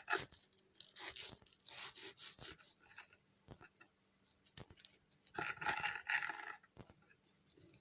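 A knife sawing through a toasted bread sandwich: a run of short scraping strokes, then a louder, longer scrape about five and a half seconds in.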